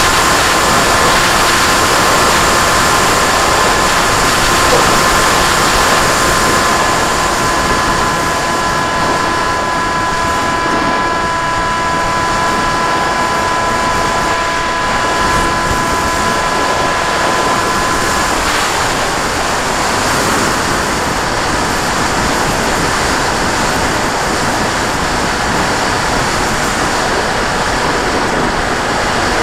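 Motor and propeller of a radio-controlled FPV model airplane heard through its onboard camera: a steady whine over a loud rush of wind. The whine stops about two-thirds of the way through, leaving the wind rush.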